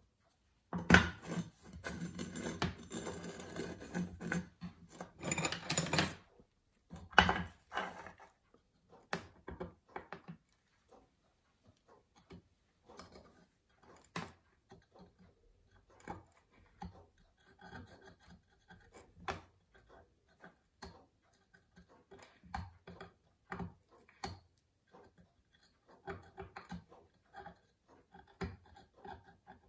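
Small-scale metal handwork on a pocket-watch case hinge against a wooden bench: dense rubbing and scraping for about five seconds, starting about a second in. Then scattered light clicks and short scratches as a fine steel pin is worked at the hinge knuckles.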